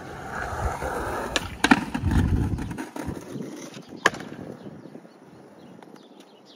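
Skateboard wheels rolling over concrete, with two sharp clacks of the board about a second and a half in. The rolling rumble stops short of halfway, and one more sharp clack comes about four seconds in.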